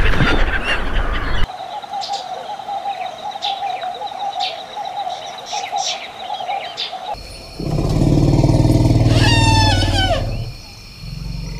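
Gulls calling briefly at the start, then small birds chirping over a steady wavering tone. After that an Asian elephant gives a loud, deep rumbling call that ends in a falling, squealing trumpet.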